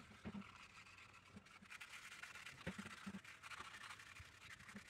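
Faint, irregular scratching of 120-grit sandpaper, wrapped around a round steel bar, rubbing over a resin knife handle.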